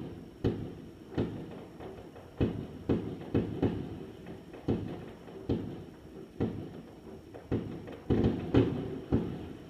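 Fireworks going off in a string of irregular dull bangs, about one or two a second, each with a short echoing tail.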